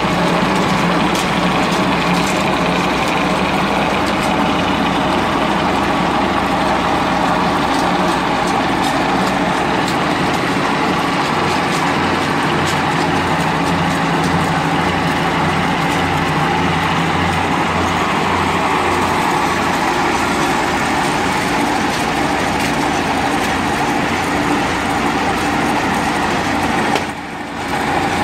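Toyota 7K 1.8-litre four-cylinder engine running steadily on LPG gas, driving a fish-feed extruder through V-belts and pulleys. The engine and the extruder make one loud, continuous machine noise, which dips briefly near the end.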